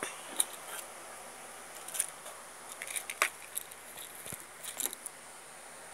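Scattered light clicks and taps of small plastic bottle caps being picked up and set down, with the sharpest clicks about half a second, two seconds and three seconds in.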